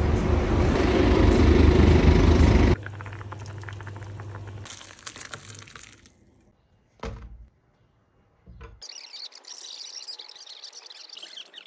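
Loud bus and street rumble that cuts off suddenly about three seconds in; then soup being poured from a pot into a bowl, a single short knock, and finally birds chirping in high, wavering calls.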